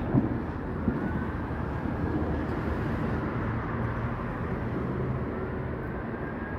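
Steady rumble of distant urban traffic, with a couple of dull thumps in the first second.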